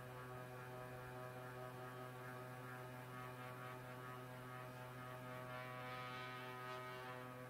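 A steady low hum with many steady tones stacked above it. About five seconds in, faint scratching of a pencil tracing along the edge of a steel pan on end-grain wood.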